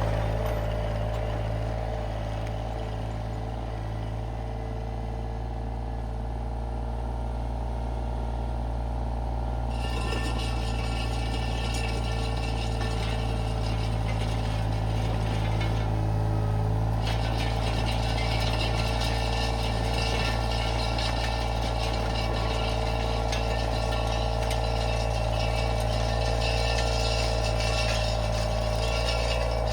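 Iron Rhino IR1200 mini skid steer's engine running steadily with a constant low hum. About ten seconds in, a rattling clatter joins it as the power rake attachment churns gravel and soil, easing briefly a few seconds later, then going on.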